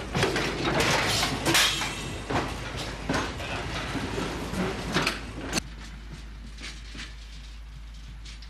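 Railway freight wagon moving along the track with heavy metal clanking and scraping, full of sharp knocks. The sound cuts off sharply about five and a half seconds in, leaving a quieter background with a few faint clicks.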